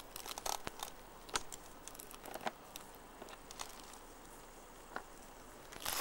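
Faint, scattered crackles and snaps of dry grass and stems being brushed and trodden, at irregular moments, with a louder rustle near the end.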